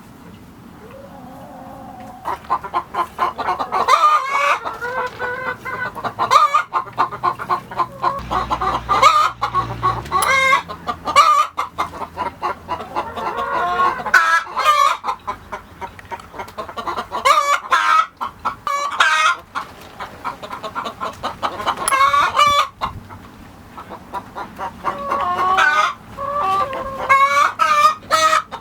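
A flock of chickens clucking and calling, many short calls overlapping.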